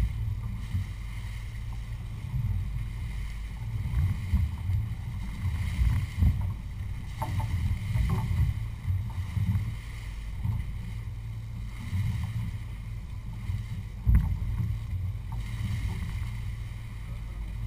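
Twin outboard boat motors running steadily under way, a low rumble mixed with wind buffeting the microphone and the hiss of the wake. A single sharp thump stands out late on.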